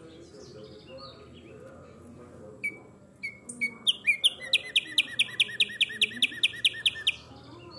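Caged songbird, the one called tumba yegua, singing. A few sharp separate notes lead into a fast run of about sixteen loud repeated notes, about five a second, lasting roughly three seconds.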